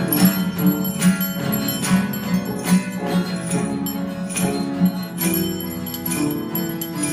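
Instrumental music with bells, a bell-like strike landing on a steady beat a little faster than once a second over sustained ringing tones.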